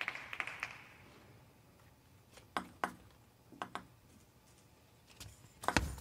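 A few sharp taps of a table tennis ball in a quiet arena, coming in two quick pairs in the middle. A sudden louder burst of noise rises near the end.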